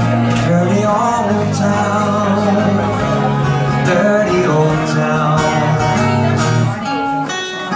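Two guitars played live together, an archtop guitar and a cutaway acoustic guitar, in a steady strummed and picked accompaniment with a moving bass line. The playing thins out near the end.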